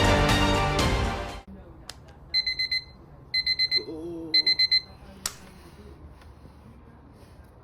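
Music cuts off about a second and a half in; then an electronic alarm clock beeps in three quick runs of four or five high beeps, each run about half a second long, followed by a single sharp click.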